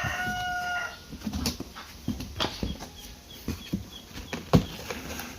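A rooster crowing, its call trailing off about a second in, followed by scattered knocks and rustles of a box being opened and its contents handled.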